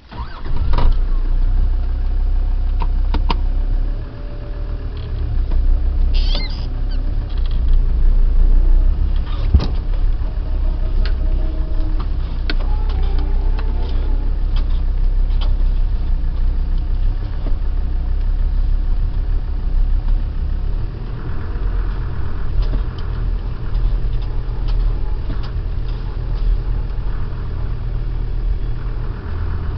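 Land Rover engine starting and then running while the vehicle drives off-road, with a steady low rumble and scattered knocks and rattles from the cab.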